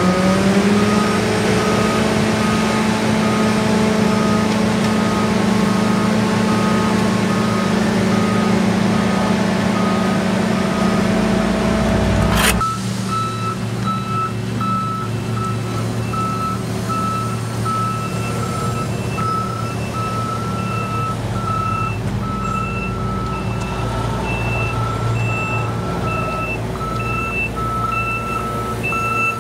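Heavy diesel road-construction machinery running, its engine revving up slightly at the start, while a backup alarm beeps steadily. About twelve seconds in the sound cuts abruptly to another machine's engine, with a backup alarm still beeping.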